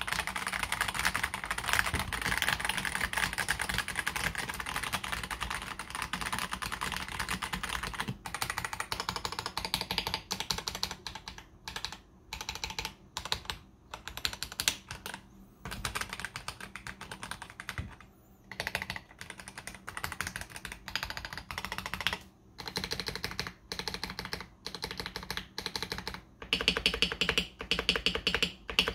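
Typing on a KBD67 Lite R3 mechanical keyboard fitted with stock, unlubed AKKO CS Jelly White linear switches and Akko ASA low-profile keycaps. A fast, continuous clatter of keystrokes for the first several seconds gives way to short bursts of typing with brief pauses between them, turning busier again near the end.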